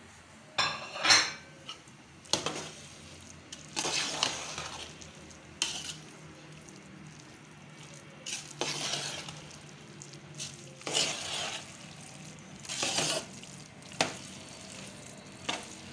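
Spoon stirring and scraping a pot of carrot halwa as powdered milk is worked in, in irregular strokes roughly one every second or two.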